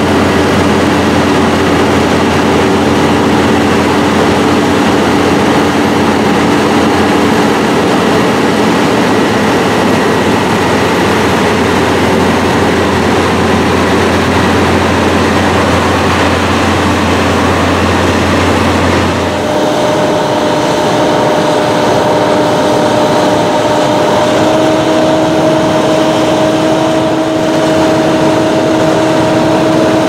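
Vintage combine harvester working a wheat field, its engine and threshing machinery running steadily. About two-thirds of the way through, the deep hum drops away and gives way to a steadier sound with a held whine that steps up slightly in pitch a few seconds later.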